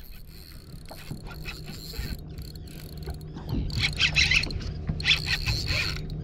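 Fishing reel buzzing in short spells while a hooked fish is played, growing louder from about halfway in, over the steady low hum of the boat's idling engine.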